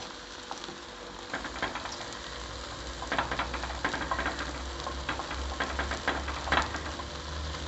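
Egg batter sizzling in an oiled paniyaram pan, with repeated small scrapes and taps of a ladle against the pan as each ball is worked. A low steady hum runs underneath.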